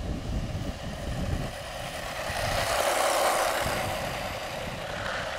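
Electric 1/14-scale RC monster truck driving past at speed on tarmac: the motor and tyre noise swells as it nears, is loudest about three seconds in, then fades. Wind buffets the microphone throughout.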